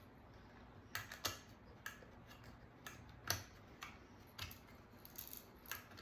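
Faint, irregular clicks and taps of small metal and plastic parts as the trigger mechanism of an Air Venturi Lil' Duke BB gun is worked loose from the gun, with one sharper click about three seconds in.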